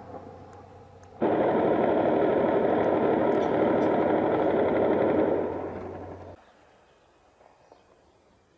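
Combat noise from a bombardment: a sudden, loud, dense roar of weapons fire starts about a second in, holds steady for about four seconds, then fades and cuts off. A fainter tail of an earlier blast dies away at the start.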